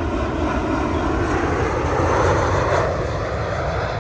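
Airliner passing close by on its way to or from the airport runway, its engine roar swelling to a peak a little past halfway through and then starting to ease off.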